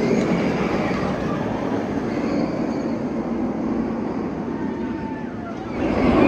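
B&M inverted roller coaster train running along its steel track, a steady rumbling roar that fades off and then swells again near the end.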